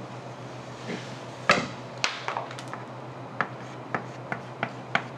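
Chalk tapping and scraping on a blackboard as hatch lines are drawn: a string of about nine sharp, short taps, the loudest about one and a half seconds in.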